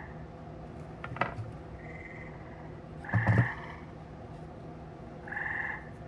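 Frogs calling in the background, short pulsed trills of about half a second each, repeating roughly every two seconds. A sharp click about a second in and a low knock about three seconds in, the loudest moment, sound over them.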